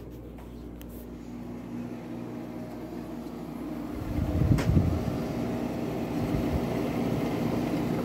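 Room air conditioner running: a steady compressor-and-fan hum that grows louder about halfway through, with a thump about four and a half seconds in.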